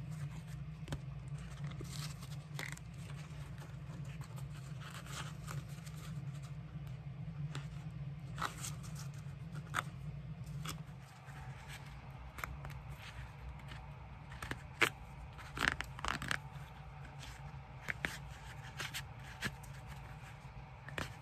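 Old stitching being picked and pulled out of a leather boot's welt with a pointed pick: irregular small scratches, snaps and tearing of thread through leather, busier in the second half. A steady low hum underneath fades about eleven seconds in.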